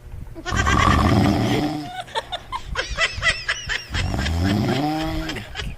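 A loud, rough snore, played as a prank, followed by bursts of high-pitched laughter and squeals.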